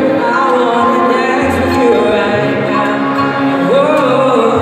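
A live band playing a song: singing over acoustic guitar and keyboard.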